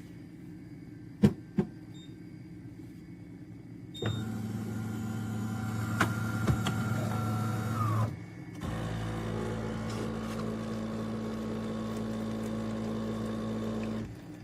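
De'Longhi Rivelia espresso machine running: two clicks, then a steady mechanical hum from about four seconds in, a brief break around eight seconds, and a second steady run that cuts off just before the end.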